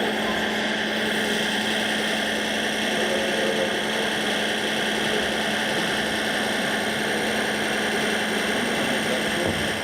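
Steady mechanical hum and whir, with a constant low tone under an even hiss.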